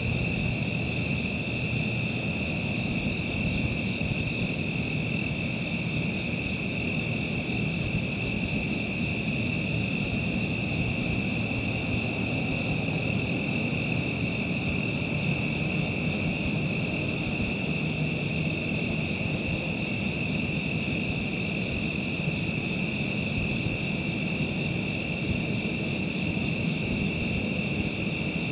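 Night insect chorus of crickets or katydids: a steady, high-pitched trilling drone that holds without a break, over a low steady rumble.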